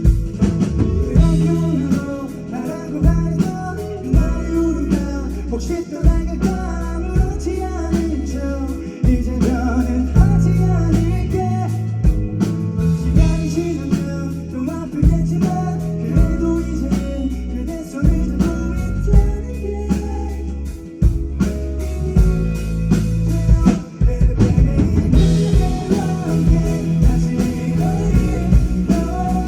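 Live band playing a pop-rock song: a singer over drum kit, guitar and bass. The cymbals get brighter and busier near the end.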